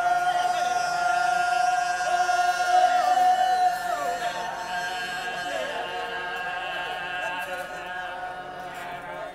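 Wodaabe men singing a geerewol dance song in unaccompanied chorus: one high note held for about four seconds while other voices slide up and down around it. The singing swells around three seconds in and eases back soon after.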